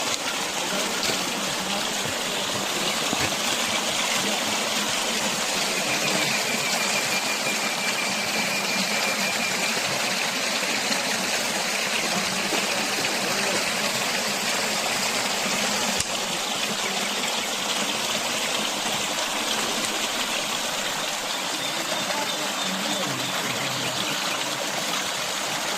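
Steady rush of water from a waterfall and its stream, an even, unbroken hiss.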